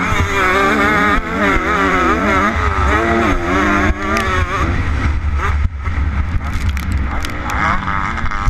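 2013 Kawasaki KX250F four-stroke single-cylinder motocross engine revving up and down as the bike is ridden round a dirt track, with a low rumble of wind on the microphone. The revs fall off briefly a little past the middle, then climb again.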